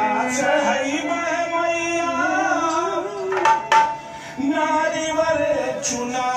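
A man singing long, slowly bending notes over a harmonium, with dholak drum accompaniment; two sharp strokes land about halfway through, followed by a brief drop in loudness.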